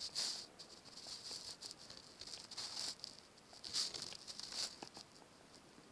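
Faint, short scratchy strokes of handwriting, a writing tool dragged across a writing surface in several separate bursts as an expression is written out.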